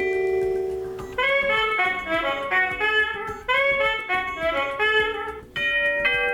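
Honeywell P2 wireless door chime playing its built-in electronic chime sounds. A held chime tone dies away over the first second, then a quick run of notes plays as a short phrase twice over, and a new set of ringing chime tones starts near the end.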